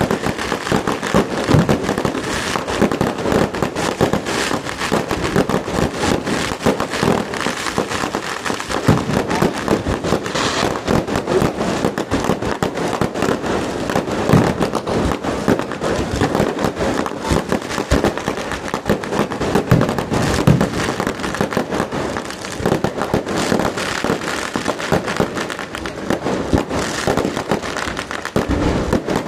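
Fireworks display: a dense, continuous barrage of bangs and crackling with no break.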